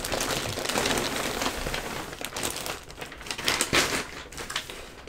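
Plastic poly mailer and the clear plastic bag inside it crinkling and rustling as the wrapped backpack is pulled out, a steady rustle at first and a few sharper crackles later.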